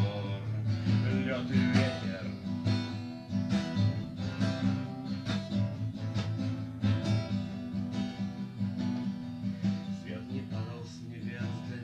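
Guitar strummed in a steady rhythm, playing the song's chords with no voice over it.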